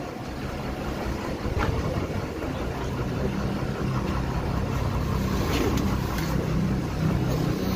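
Bus engine idling steadily, with a couple of light knocks about one and a half and five and a half seconds in.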